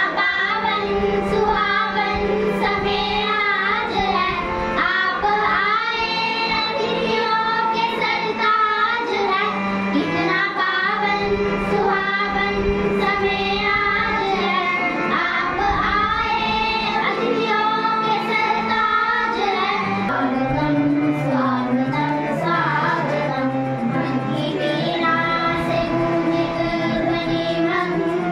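Children singing a song with musical accompaniment, the melody carried over a steady held note. About two-thirds of the way through, the held note drops lower and the song moves on.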